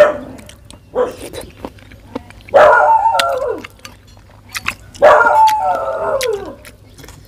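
A dog whining and howling in two long cries, each about a second long and falling in pitch, with a sharp click at the very start and a lighter knock about a second in.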